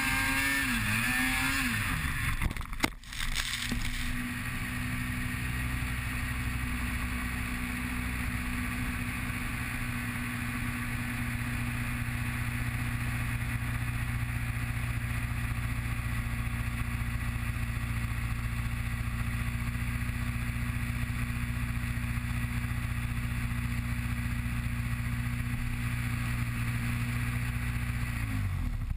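Snowmobile engine on a tipped-over sled. Its pitch wavers for the first couple of seconds and there is a knock about three seconds in; then it idles steadily, and near the end the idle drops away and stops.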